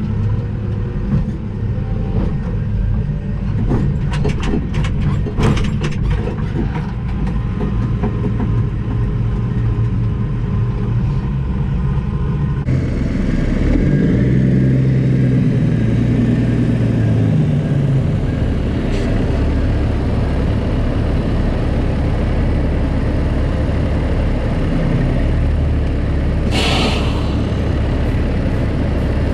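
Heavy diesel engine running steadily, with a run of clicks or knocks a few seconds in, a change in the engine's note about halfway through, and a short loud hiss of air near the end.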